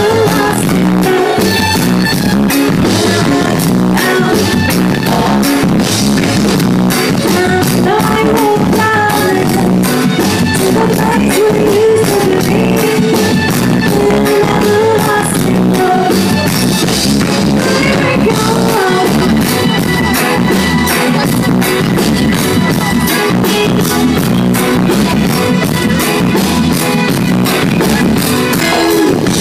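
Live reggae band playing with a woman singing lead into a microphone, over drums with a steady beat, guitar and keyboards.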